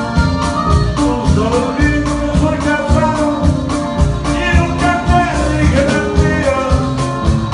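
Live norteño band playing loudly: drums keep a steady beat under guitar and bass, and a man sings the melody into the microphone.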